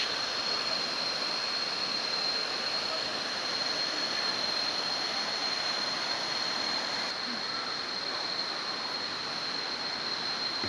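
Waterfall water rushing in a steady, even roar, with a thin steady high-pitched tone over it.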